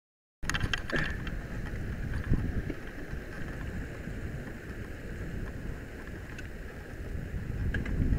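Mountain bike rolling down a dirt trail, recorded from a camera on the bike or rider: wind buffeting the microphone with a low rumble, and rattles and knocks from the bike over bumps. It starts abruptly about half a second in.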